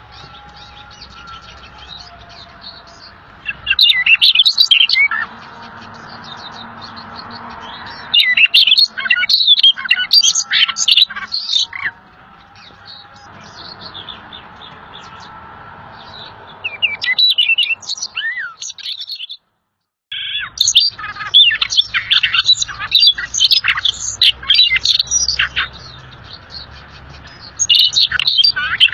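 A songbird singing in bursts of rapid, high chirping notes, with short pauses between the phrases. The sound cuts out completely for about half a second around two-thirds of the way through.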